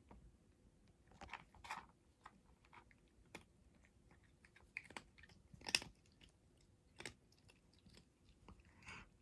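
Near-quiet room with faint, scattered rustles and soft clicks from a hand scratching a cat's head and fur; the sharpest click comes about six seconds in.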